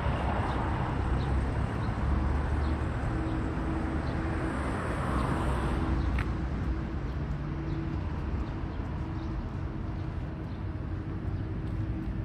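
City street ambience: a steady traffic rumble with vehicles passing, and a few faint bird chirps in the first couple of seconds. A single sharp click about six seconds in.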